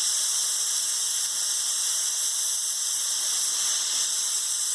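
Compressed air blasting steadily from an air nozzle held open on the end of a long air hose, a strong, even high hiss.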